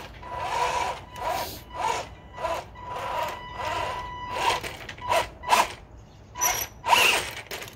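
Electric drive motor of a BWINE Q111 1:12 RC tank whining in a string of short throttle bursts, with its tracks scraping against firewood logs as it climbs over them; the bursts get sharper toward the end.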